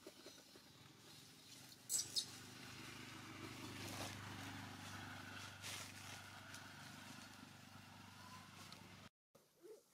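Two sharp clicks about two seconds in, then a motor running steadily, swelling about four seconds in and slowly fading; the sound cuts off suddenly near the end.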